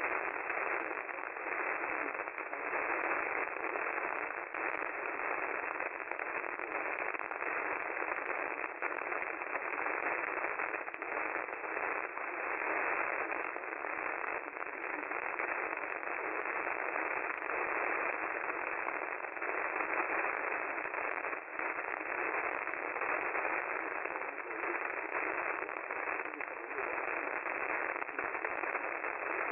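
AM radio static: a steady, narrow-band hiss with frequent crackles and no programme audio coming through.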